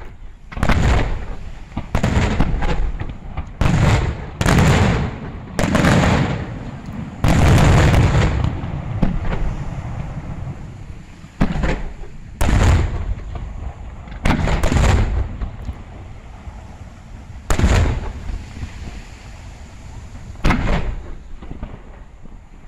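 Aerial firework shells bursting one after another, each a sharp bang followed by a rolling, fading rumble. The bangs come in a quick run for the first eight seconds or so, then singly every two or three seconds.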